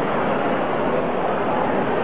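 Steady hubbub of a large indoor crowd, many voices blended into one even noise with no single voice standing out.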